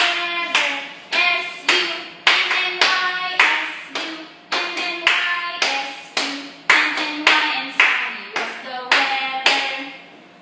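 Hand claps keeping a steady beat, a little under two a second, under a woman singing a children's song.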